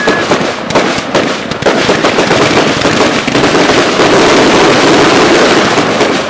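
Fireworks going off in a dense barrage: separate bangs at first, merging into a continuous loud crackle of overlapping reports from about two seconds in.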